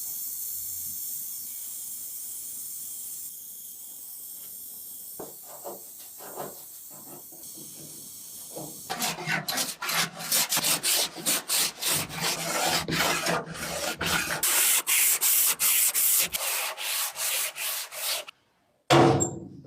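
A steady hiss, then from about nine seconds in a quick run of rubbing strokes, two or three a second, followed by a loud bump near the end.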